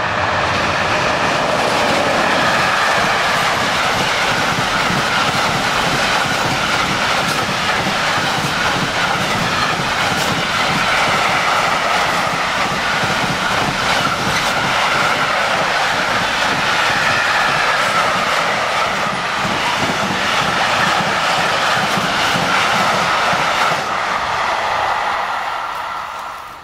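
Long container freight train passing close: steady rolling noise of the wagon wheels on the rails, with a clatter of wheels over the rail joints and a high whine above it. It fades away near the end.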